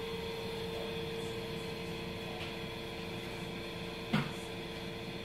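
Steady indoor mechanical hum, like a fan or heater running. About four seconds in there is one short, low, falling sound.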